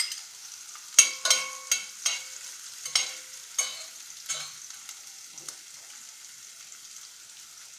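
A metal spoon clinks against a stainless steel saucepan, a quick run of sharp knocks with a faint metallic ring over the first few seconds, as black olives are stirred into green onions frying in melted butter. Under and after the knocks, a soft steady sizzle.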